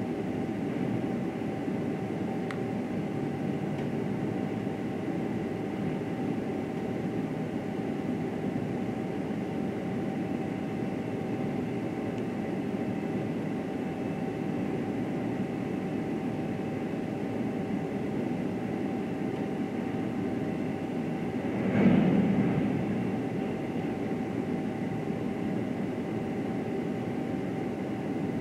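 Recycling truck's engine and loader-crane hydraulics running steadily with a faint steady whine while the crane lowers a steel recycling container into the truck bed. A single loud metal thud about three-quarters of the way through as the container comes down in the bed.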